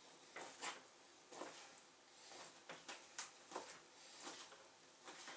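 Kitchen knife slicing raw chicken breast on a cutting board: faint, irregular soft cuts and taps of the blade against the board, about one or two a second.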